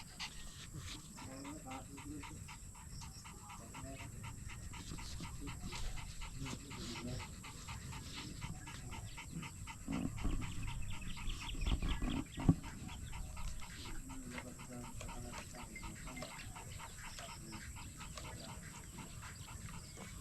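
Rapid, steady panting. It grows louder about halfway through, with one sharp knock shortly after.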